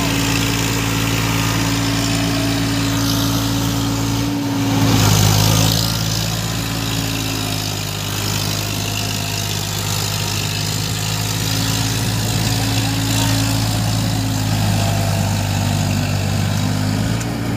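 Eicher 557 tractor's diesel engine running steadily under load while it drags a rotavator through deep flooded mud, over a haze of churning mud and water. About four and a half seconds in, the sound briefly swells louder and the engine note shifts, then settles back to a steady pitch.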